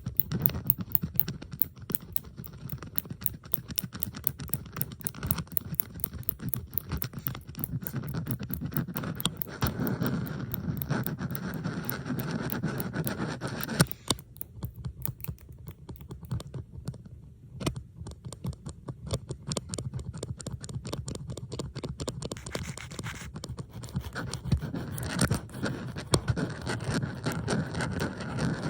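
Metal bobby pins scraped and clicked against each other, with several recordings layered into a dense run of fast scratching clicks. It thins out and drops quieter for a few seconds about halfway through.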